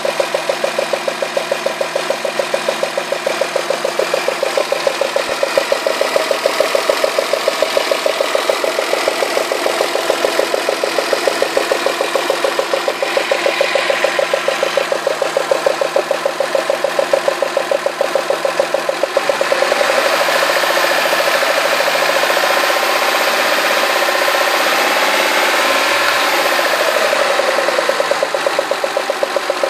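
Citroën Xantia V6 engine idling with a fast, even clatter that sounds like bearing damage or failed hydraulic lifters. About two-thirds of the way in the engine is revved up and back down for several seconds, then it settles back to the clattering idle. The owner traced the noise to spark flashover at cylinder one, whose plug well was flooded with spilled oil.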